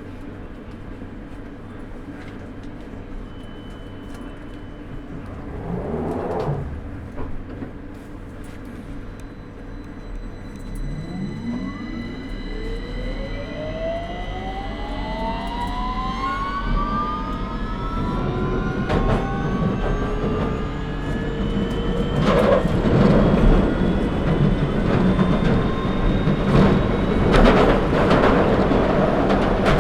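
London Underground 2009 Stock train's traction motors pulling away: a few seconds of steady standing hum, then from about ten seconds in a rising whine of several tones climbing together as the train accelerates. Growing wheel-on-rail rumble with sharp clicks follows near the end as speed builds.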